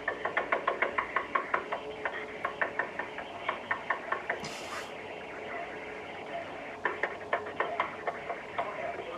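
Rapid, frantic knocking on a front door, about five knocks a second, in two runs with a pause of about two seconds between them, heard through a doorbell camera's microphone.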